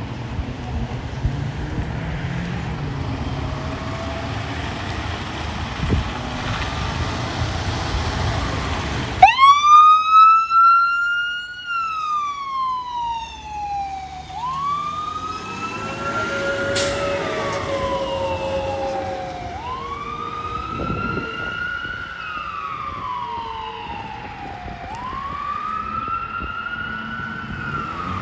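Fire rescue truck rumbling, then about nine seconds in its siren starts suddenly and wails, rising and falling about every five seconds.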